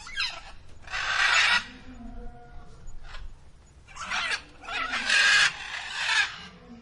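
Harsh, screechy animal calls: a raspy cry about a second in, then three more in quick succession from about four seconds, each with a lower wavering tone beneath it.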